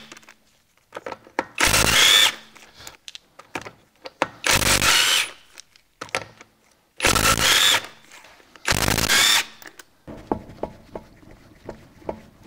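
Impact wrench running in four short bursts of under a second each, loosening the bolts on a car's front wheel. In the last couple of seconds there are small knocks and clicks as the wheel is handled off the hub.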